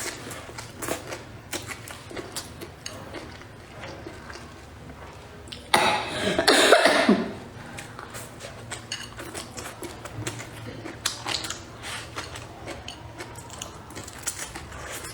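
Someone eating, with chewing and frequent light clicks of utensils. About six seconds in comes one loud cough lasting over a second, falling in pitch at the end.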